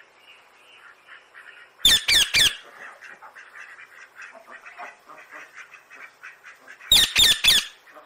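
Green parakeets squawking. Two loud, harsh bursts of three screeches each come about five seconds apart, over steady softer chattering calls.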